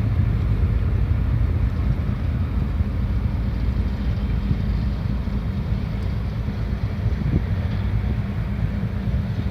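Car ferry's engines running with a steady low rumble as the ship manoeuvres into port, with wind buffeting the microphone.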